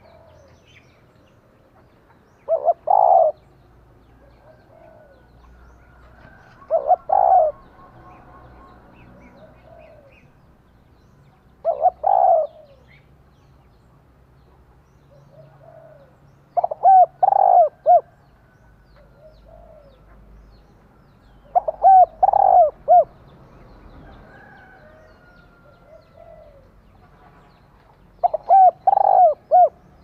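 Female spotted dove cooing: six short phrases of a few notes each, about every five seconds, the call a hen uses to draw a male. Fainter bird calls in between.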